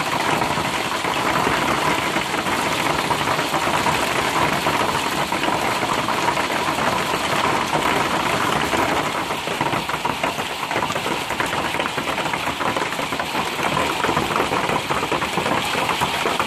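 Heavy hail pelting down: a dense, steady clatter of many small hailstones striking the ground, the parked cars and the roofs.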